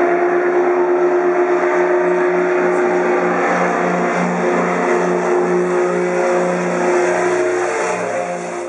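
Twin-engine propeller aircraft flying overhead, its engines droning steadily with a slow throbbing beat of about one and a half pulses a second, the sign of the two engines running slightly out of sync. The sound begins to fade near the end.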